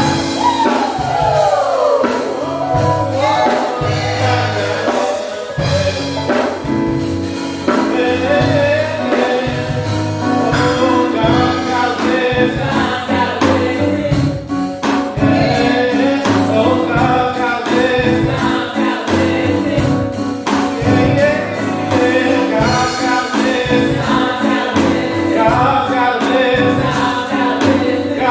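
Gospel song sung by a church praise team: women leading at the microphone with other voices joining in, over a steady beat.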